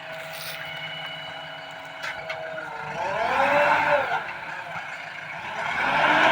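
JCB backhoe loader's diesel engine running steadily, then revving up and back down about three seconds in, and revving up again near the end.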